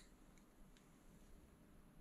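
Near silence: faint room tone with a couple of faint ticks.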